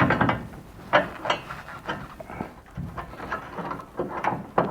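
Irregular metal clinks and knocks of hand tools and steel parts being handled, the loudest at the very start and about a second in.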